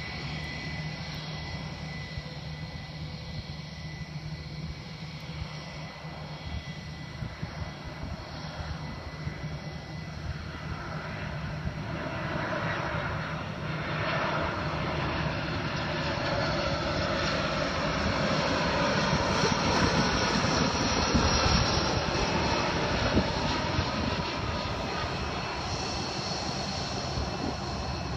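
Jet airliner on final approach, its engine noise swelling over about ten seconds to a peak a little past the middle and then easing off as it passes to land, with a steady high whine underneath.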